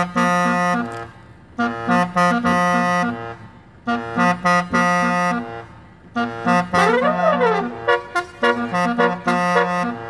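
Basuri musical bus horn playing a tune in short phrases separated by brief pauses, with a rising-and-falling pitch sweep about seven seconds in.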